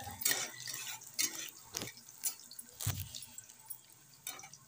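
Chopped onions frying in hot oil in a metal kadhai, with irregular crackles and pops over a faint sizzle. There is a single dull knock about three seconds in.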